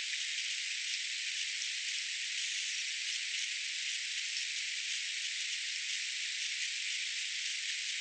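A steady, even high hiss with a few faint ticks; no bird calls.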